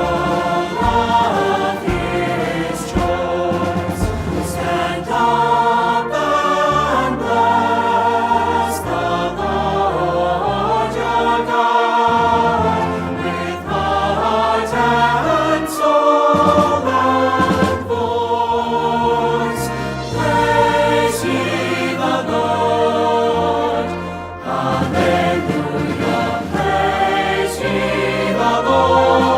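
Choir singing a hymn with instrumental accompaniment and a moving bass line.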